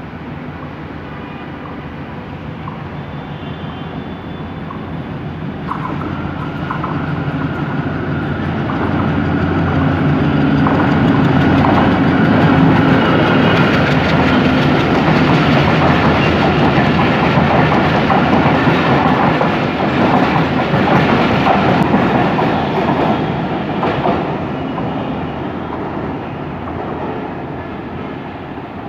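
Bangladesh Railway's Sirajganj Express passenger train passing close by, its coaches' wheels running over the rails. The sound builds over the first ten seconds, stays loud for about a dozen seconds, then fades near the end.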